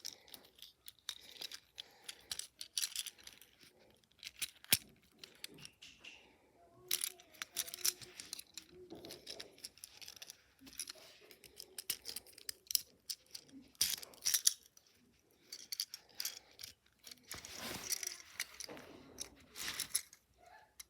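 Small plastic toy parts clicking and rattling as they are handled, many sharp irregular clicks, with a few louder knocks.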